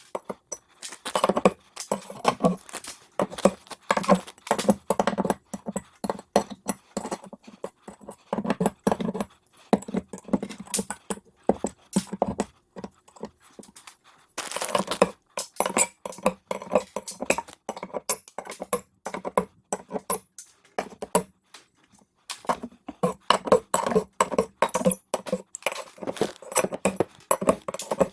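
Rapid, irregular knocking and clattering, several knocks a second, in bursts with short pauses between them.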